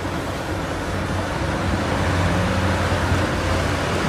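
A motor vehicle's engine running steadily: a low hum under a rushing noise that slowly grows louder.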